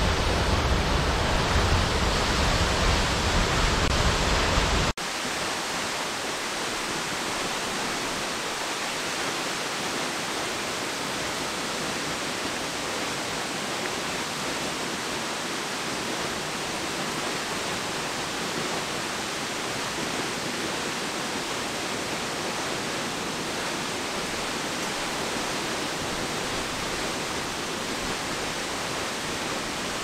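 Steady rush of waterfall water. For about the first five seconds it is loud and full, with plenty of deep sound from a cascade pouring into a rocky stream; then it cuts suddenly to a quieter, thinner, even hiss of a tall waterfall plunging into a pool.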